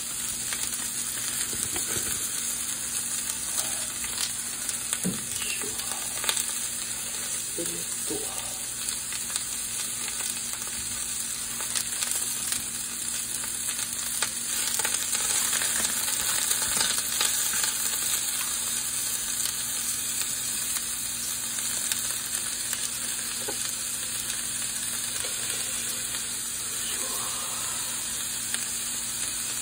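Pork, bean sprouts and vegetables sizzling steadily in a hot frying pan, with scattered clicks and scrapes as the food is stirred. The sizzle grows a little louder midway through.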